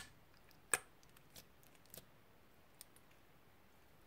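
Fingers pressing into and stretching old, partly dried slime, giving a few short sharp clicking pops: the loudest at the very start and just under a second in, then fainter ones about every half second to the third second.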